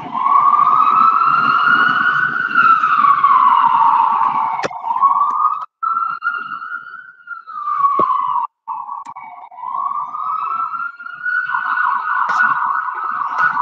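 Recorded ambulance siren played back from a video, wailing in slow rising and falling sweeps. The siren cuts out briefly twice near the middle, and a few sharp clicks sound over it.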